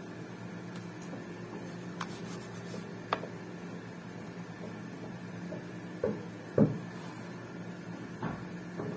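A few light knocks and clicks as a small digital pocket scale is handled and pressed on a tabletop, with the loudest knock a little past halfway, over a steady low hum.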